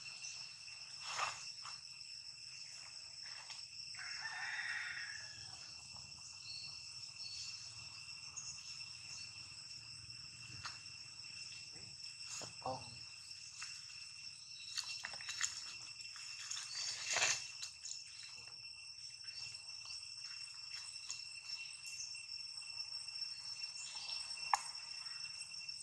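Outdoor ambience of a steady, high insect drone from crickets or cicadas, with a distant rooster crowing once about four seconds in. Scattered short clicks and rustles, the sharpest about seventeen seconds in.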